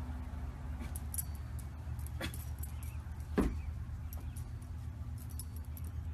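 Light jingling and a few short clicks from a dog's collar and harness as it creeps forward, over a steady low outdoor rumble. The loudest click comes about three and a half seconds in.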